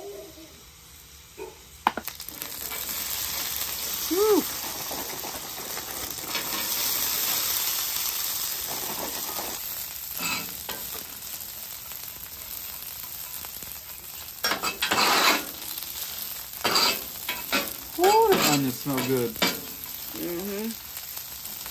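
Frozen french fries sizzling in hot oil on a flat-top griddle, with a sharp clack about two seconds in as the sizzle sets in. From about fourteen seconds on, a metal spatula scrapes and turns them across the steel. A few brief whining sounds rise and fall, about four seconds in and near the end.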